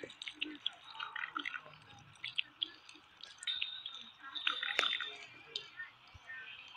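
Irregular wet squelches, clicks and drips, with a brief steady high whine a little past the middle.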